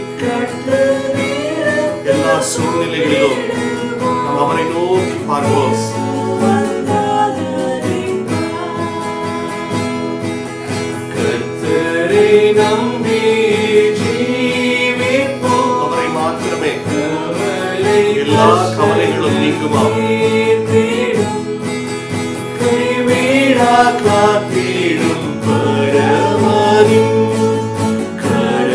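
Men's and a woman's voices singing a Tamil Christian worship song together, accompanied by an acoustic guitar.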